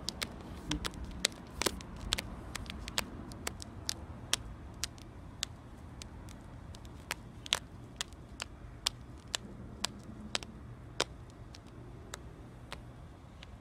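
Irregular sharp clicks, a few a second, over a steady low outdoor rumble.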